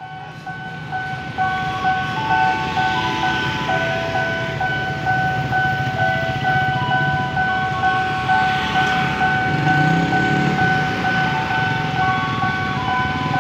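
Level-crossing warning signal sounding: a held electronic tone with a stepping chime melody over it, repeating, over the low running of waiting motorbike and car engines.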